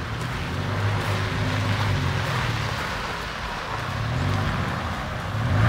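Toyota Tacoma pickup's engine running at low speed as the truck manoeuvres slowly over a dirt track, its low hum swelling and easing a few times, with a hiss of tyres and air over it.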